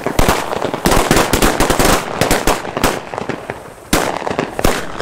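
Firecrackers going off on the ground in a rapid string: a dense crackling run of sharp bangs about a second in, thinning out, then two louder single bangs near the end.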